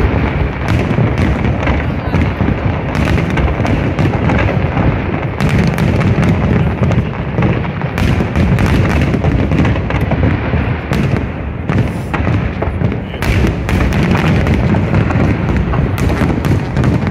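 Aerial fireworks going off in rapid succession: a dense, continuous barrage of booms with many sharp pops and crackles throughout.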